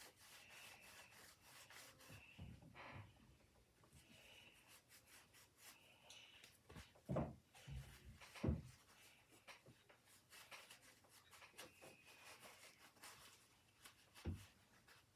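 Faint rubbing in quick repeated strokes on the plastic case of a 1950s RCA transistor radio as it is scrubbed clean. Three soft knocks stand out, two in the middle and one near the end.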